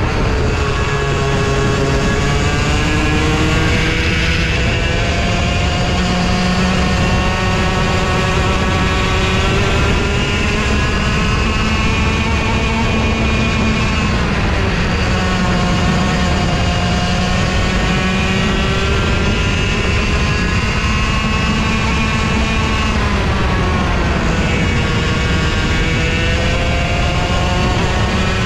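Racing kart engine heard from on board at race pace. Its revs drop sharply and climb steadily back up about four times, the pattern of lifting into corners and accelerating out along a lap.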